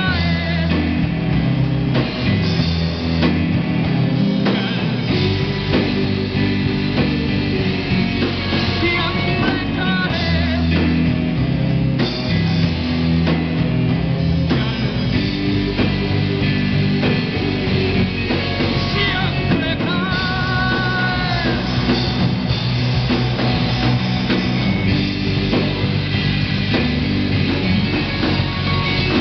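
Rock band playing live: electric guitar, bass guitar, keyboards and drum kit, with a male singer.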